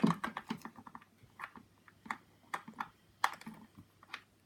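Light irregular clicks and taps of hands handling a plug, cable and small plastic doorbell unit: a quick run of clicks in the first second, then scattered single clicks.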